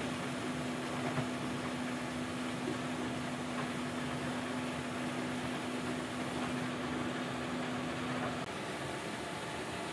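Steady hum and hiss of a running machine, with a constant low drone that gives way to a slightly higher one near the end.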